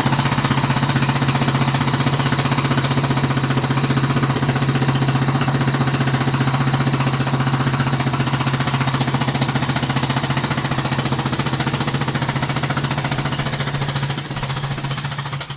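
Jackhammer hammering continuously in rapid, even strokes. It eases off slightly about a second before the end.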